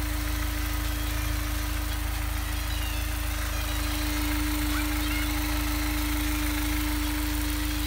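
Honda S2000's F20C four-cylinder engine idling steadily, heard close at the front timing chain cover, with a steady whine over the running. At low revs this engine has a subtle rattle that the owner is about 70% sure comes from a failing timing chain tensioner letting the chain slap.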